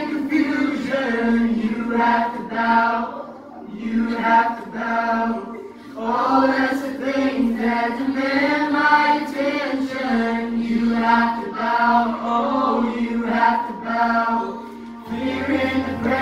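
Youth choir singing a worship song together, front singers on microphones with the rest of the choir behind, in phrases of held notes.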